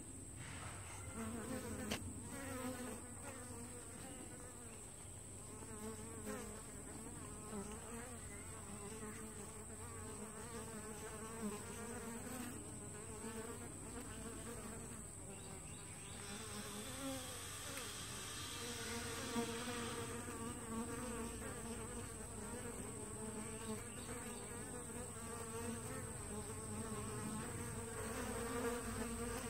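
Honeybees buzzing in flight at a hive entrance: several overlapping, wavering hums that swell and fade as bees pass close by. This is the entrance traffic of a young hive split.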